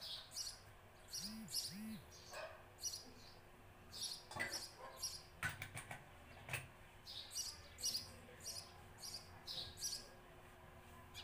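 Small birds chirping over and over in the background, with a few clicks and knocks around the middle as a plastic murukku press is filled with dough and its cap put on.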